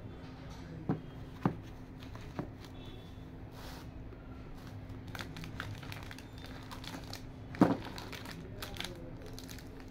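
Clear plastic wrapping crinkling as items in a gift box are handled. There are three sharp clicks in the first few seconds and a louder knock later on, over a faint steady hum.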